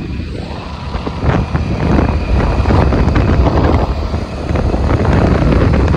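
Wind buffeting the microphone of a phone held on a moving motorcycle, a loud, gusty low rumble mixed with the motorcycle's running and road noise.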